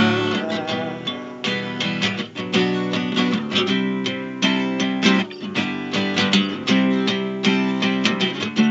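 Acoustic guitar strummed in a steady rhythm of chords, an instrumental break between sung verses, picked up by a webcam microphone.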